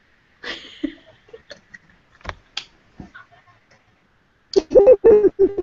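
A few scattered clicks and short breathy noises, then from about four and a half seconds in a woman laughing loudly in short bursts, heard over a video-call connection.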